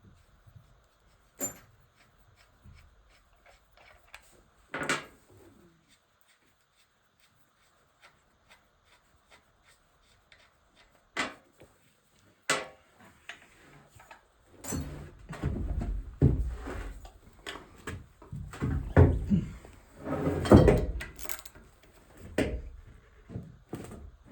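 Scattered clicks and knocks of hand tools and transmission parts being handled, then, about two-thirds of the way through, a dense run of heavier clunks and rattling.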